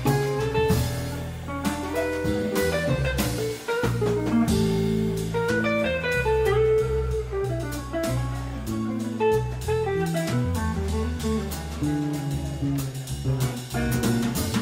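Live jazz trio playing: electric guitar notes over a walking electric bass line and a drum kit with cymbals.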